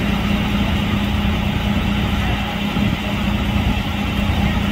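Flatbed tow truck's engine idling steadily: an even, low hum that does not change.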